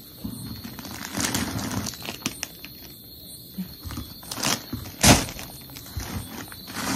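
Plastic bags and wrapping rustling and crinkling as packets are lifted out of a cardboard box, with a few sharp crackles, the loudest about five seconds in.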